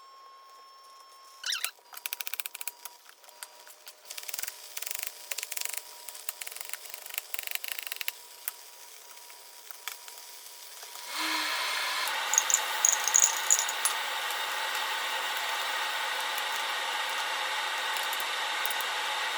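Scattered clicking and rubbing handling noises. About eleven seconds in, a loud, steady mechanical hum with several fixed tones starts and holds unchanged.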